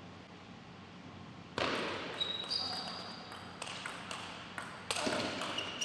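Table tennis rally: the ball clicking sharply off the bats and the table in quick, irregular succession, with short high squeaks of shoes on the court floor. The first second and a half is quiet before the rally starts.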